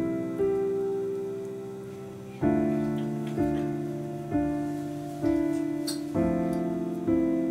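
Background piano music: slow, gentle notes and chords struck about once a second, each fading away.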